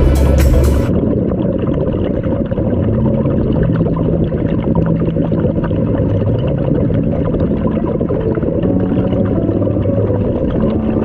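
Music cuts off about a second in. Then comes muffled underwater sound picked up through a camera housing: a dense low rumble with a wavering hum that shifts in pitch now and then.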